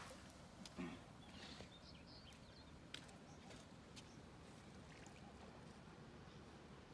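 Near silence: faint outdoor background with a few soft ticks and some faint high chirps.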